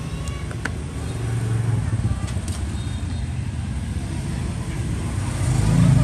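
Steady low rumble of road traffic, with a few faint small clicks as a chrome lighter is handled in its box.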